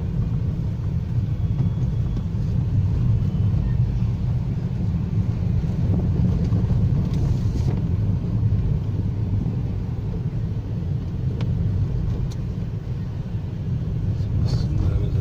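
Steady low rumble of a car's engine and tyres, heard from inside the cabin while driving slowly on a paved road.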